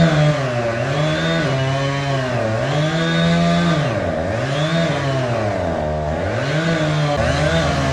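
Chainsaw engine running at high revs and being throttled up and down, its pitch dropping briefly and climbing back about five times.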